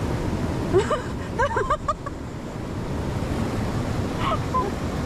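Steady rushing wind buffeting the microphone outdoors, heaviest in the low end. A few short, high-pitched calls rise and fall about one to two seconds in.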